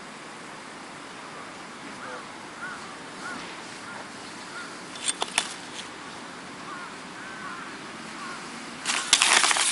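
Steady outdoor hiss with a scattering of faint short chirps. A brief cluster of clicks comes a little after five seconds, and a louder run of clattering noise near the end.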